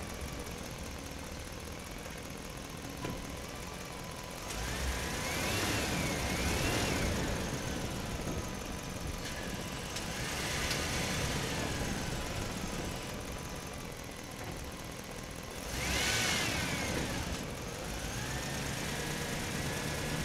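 Toy pickup truck whirring as it is rolled across the floor, in four spells, its whine rising and falling in pitch.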